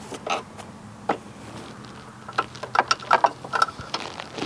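Light, irregular metallic clicks and taps, bunched in the second half, from a cordless screwdriver with a socket extension being handled and set onto a battery hold-down nut.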